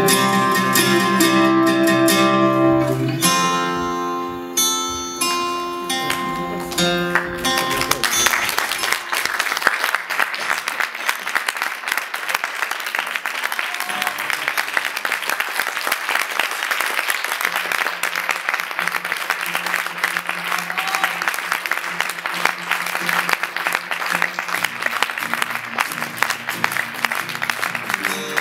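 Guitar music that dies away about eight seconds in, followed by steady audience applause.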